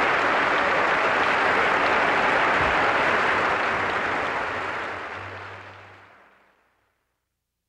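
A large theatre audience applauding steadily, fading away over the last few seconds.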